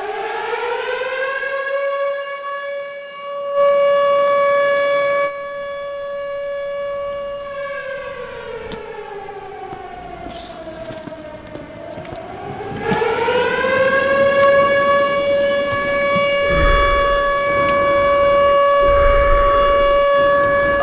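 Air-raid siren wailing: it winds up to a steady tone, slowly sinks lower about halfway through, then winds back up and holds until it cuts off suddenly.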